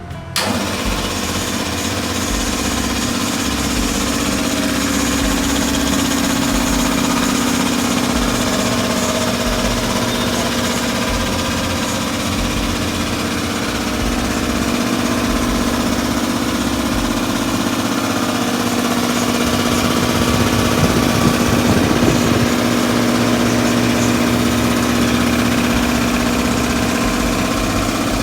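Single-stage, two-piston 100-litre air compressor starting abruptly and running steadily at a constant pitch.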